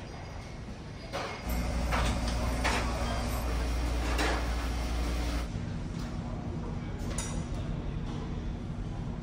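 Onboard ambience of a large car ferry: the ship's machinery drones low and steady, much louder for a few seconds in the middle, with a few light clinks and knocks.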